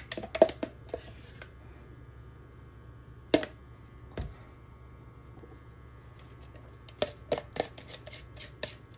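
Sharp clicks and knocks of a kitchen utensil against dishware while yogurt is handled: a quick run of taps at the start, two single knocks in the middle, and another run of quick taps near the end.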